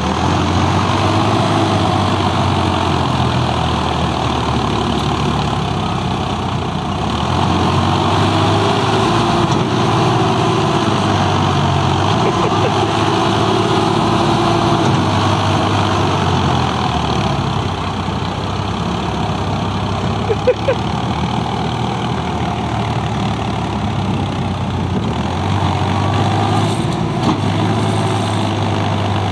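Indo Farm 3048 tractor's diesel engine running steadily under load while pulling through mud. A pair of short knocks comes about twenty seconds in.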